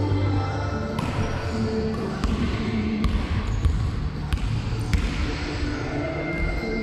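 A basketball dribbled on a wooden gym floor, with several bounces a little under a second apart, echoing in a large sports hall.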